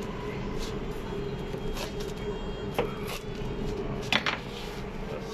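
Steady machine hum in a kitchen, with a sharp knock about three seconds in and a quick double knock about a second later.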